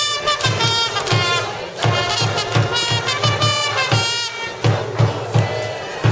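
Cheering-band trumpets playing a quick batter's fight song over a steady drum beat, with a crowd behind.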